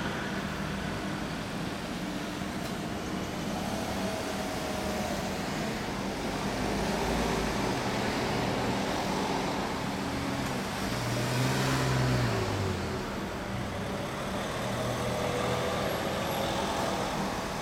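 Steady street traffic going by, with one vehicle passing about two-thirds of the way through, its low engine note rising and then falling away.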